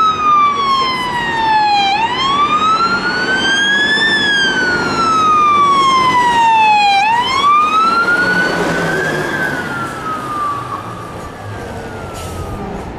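Emergency vehicle's siren wailing, its pitch sliding slowly up and down roughly every five seconds. It is loud through the middle, then the sweep breaks off and the siren fades away over the last few seconds as the vehicle goes by.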